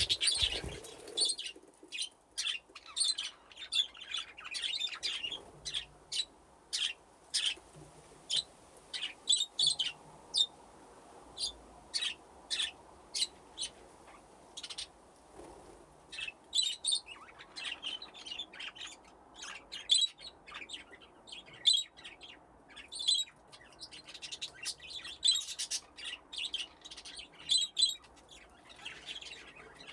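A flock of budgies chirping and chattering: many short, high chirps, often several at once, coming in bursts.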